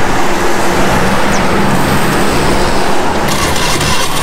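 Street traffic with a motor vehicle engine running steadily for about three seconds, then giving way to a general rush of road noise.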